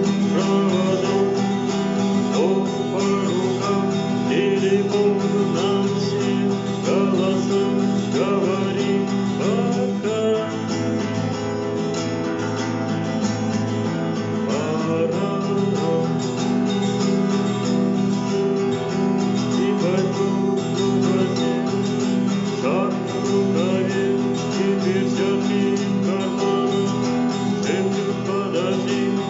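Acoustic guitar strummed in a steady, continuous rhythm.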